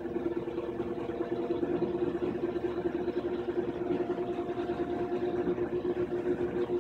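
Kenmore washing machine in its spin cycle, the tub spinning up while the agitator stays still, giving a loud, steady, fluttering hum. The loud noise comes from the nut holding the stator cover to the bottom of the tub, which had backed off.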